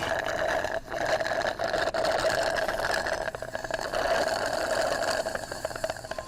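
A steady mechanical whirring buzz with a fine, rapid rattle running through it, briefly dropping out about a second in and fading near the end.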